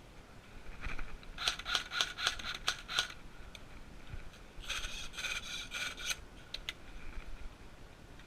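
Two spells of quick, irregular scraping and rustling, the first about a second in and the second about five seconds in.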